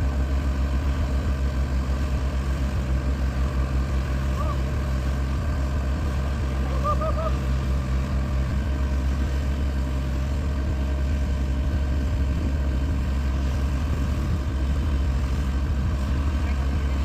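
Heavy diesel engine of an excavator running steadily with a low, pulsing throb, powering a hydraulic auger for bored piling.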